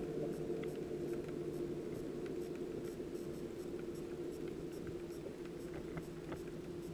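Underwater ambience picked up by a camera in its housing on the seabed: a steady low hum with scattered faint clicks.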